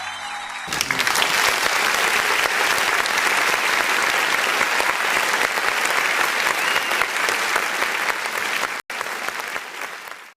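Audience applauding, breaking out suddenly under a second in as the song's last held chord dies away. The applause holds steady, drops out for an instant near the end, then fades.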